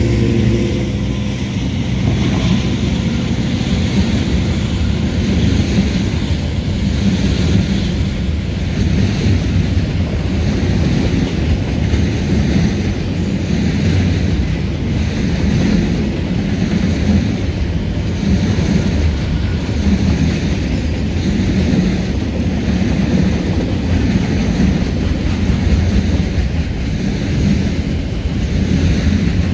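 Freight wagons of a long train rolling past close by, a steady rumble of steel wheels on the rails.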